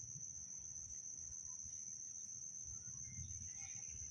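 Quiet outdoor ambience: a steady high-pitched drone of crickets, with a faint low rumble on the microphone.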